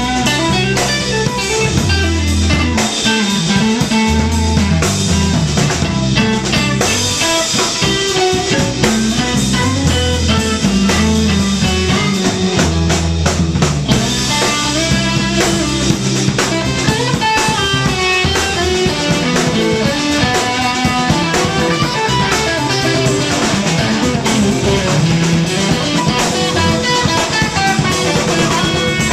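Live instrumental trio playing: Stratocaster-style electric guitar, electric bass and drum kit, with no singing.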